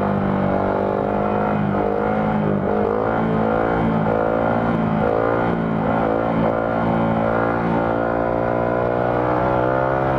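Honda Grom's 125 cc single-cylinder four-stroke engine held at steady revs with small rises and dips in pitch, as the throttle is worked through a long wheelie.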